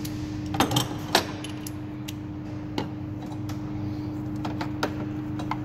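Ignition coils being pushed back into their spark-plug wells on a Kia Cerato engine: a handful of sharp plastic clicks and knocks, the loudest about a second in.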